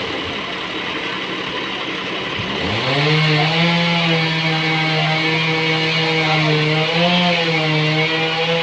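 Engine-driven sawmill working through a large trembesi log: the engine sags low, revs back up about two and a half seconds in and then runs steady, with the hiss of the blade cutting wood over it.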